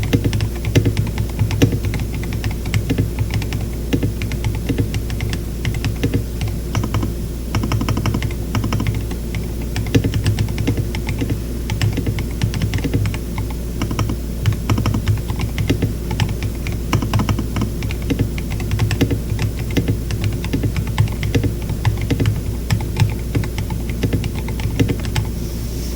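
Typing on a KBD67 Lite mechanical keyboard with tactile Glorious Panda stems in Zealios v2 housings and KAT Alpha keycaps: a steady stream of key clacks.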